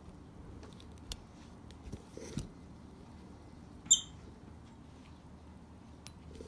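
A peach-faced lovebird gives one short, high chirp about four seconds in. Before it there are a few soft taps and rustles.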